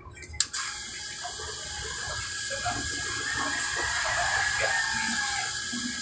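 A sharp click, then a small electric booster water pump running with water rushing through it: a steady hiss with a thin, steady whine.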